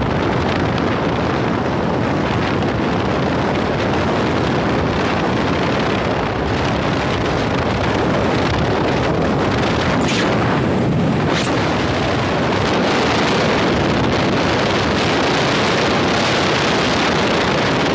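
Steady rush of wind buffeting the camera microphone of a skier going fast downhill, mixed with the skis hissing and scraping over packed, tracked snow.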